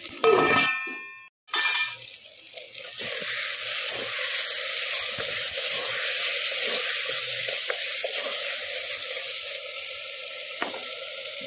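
A metal clang that rings briefly, about a second in, then a steady sizzle of taro pieces, onion, tomato and green chillies frying in oil in a pot, with small clicks from stirring.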